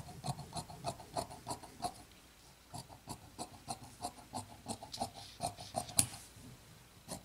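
Fabric shears cutting through rayon fabric: steady snipping, about four snips a second, with a short pause about two seconds in and the sharpest snip near the end.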